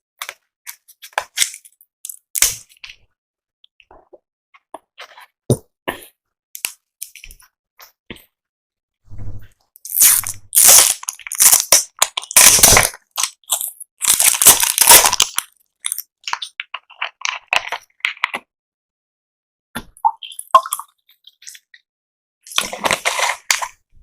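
Close-miked mouth sounds of someone drinking Thums Up cola: small wet clicks and swallows, broken by several loud noisy gulping bursts in the middle and again near the end.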